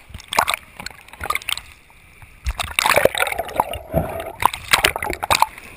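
Sea water splashing and gurgling around the camera housing in irregular surges as it breaks through the wash of waves at the surface and dips underwater.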